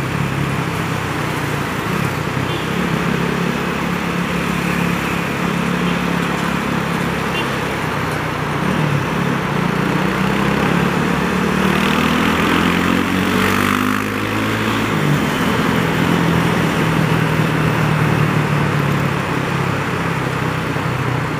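Honda CB300R motorcycle's single-cylinder engine running under way. The engine note climbs in pitch about halfway through as the bike speeds up, then settles steady again.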